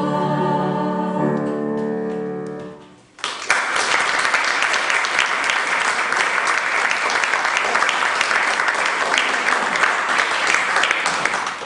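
Voices with piano holding a final chord that dies away about three seconds in, then audience applause lasting about eight seconds.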